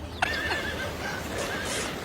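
A sudden click, then an animal's wavering call lasting about half a second, followed by shorter fainter calls.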